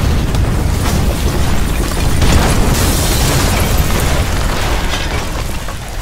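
Explosion sound effect standing for a fusion reactor blowing up: a loud, sustained rumbling blast with crackling through it, slowly dying away near the end.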